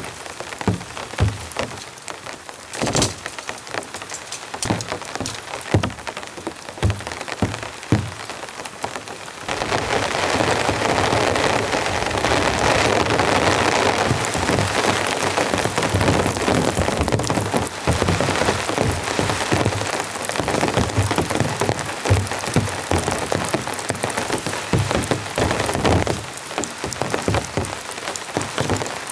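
Heavy rain. For the first nine seconds or so, large drops strike sharply one after another; then it thickens into a louder, dense, steady downpour.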